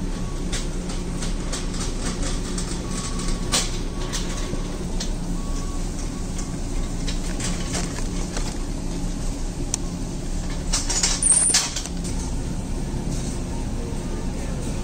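Supermarket aisle ambience: a steady low hum under scattered light clicks and package rustles, with a louder rustling clatter about eleven seconds in.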